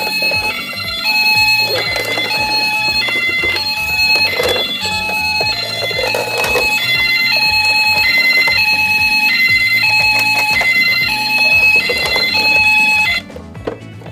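Toy ambulance's electronic siren sounding the two-tone hi-lo "pee-po" pattern, alternating steadily between two pitches. It cuts off about a second before the end.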